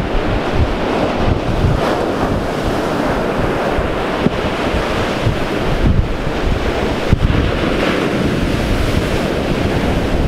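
Ocean surf breaking and washing up the sand, a steady rush of water, with wind buffeting the microphone.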